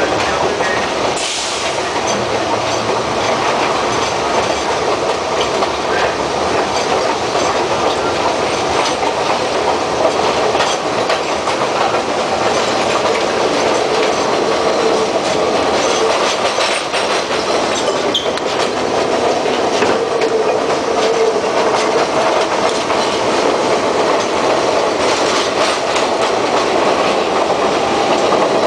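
St. Louis Car Company R42 subway cars running on elevated track, a steady rumble of wheels on rail with clickety-clack over the rail joints, heard from the end of the car.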